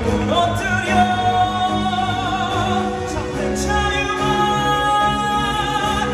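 Live stage-musical singing with orchestra: sustained sung notes with vibrato over orchestral accompaniment, typical of a curtain-call reprise.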